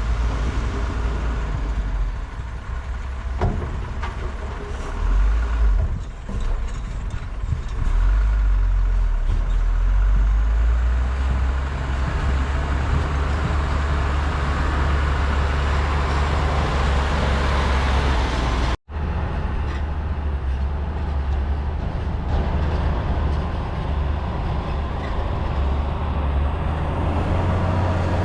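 Heavy diesel construction machinery running, a steady low rumble with a few sharp knocks in the first several seconds. The sound drops out for an instant about two-thirds of the way through.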